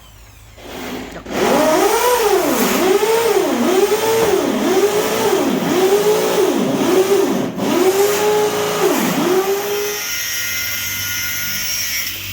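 An electric power tool's motor whining, revved up and let off again and again, roughly once every three-quarters of a second, then stopping about ten seconds in.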